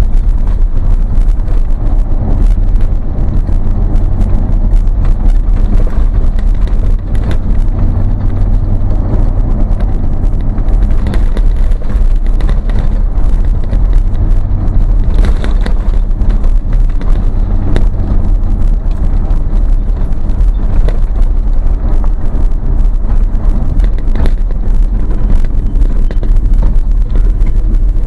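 Vehicle engine and exhaust droning steadily while driving, with road noise and a few light knocks, heard from inside the cab.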